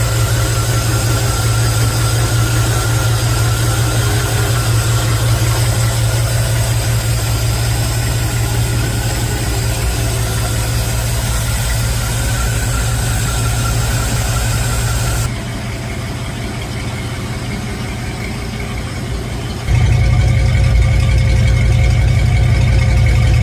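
Chevrolet C20 pickup engine idling steadily, running normally with the starter run-on cured by a remote solenoid. About two-thirds of the way through the sound turns abruptly quieter and duller, then jumps back louder a few seconds later.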